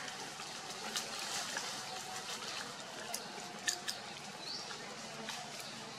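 Steady outdoor background hiss, with a few short, sharp clicks about a second in and again between three and four seconds in.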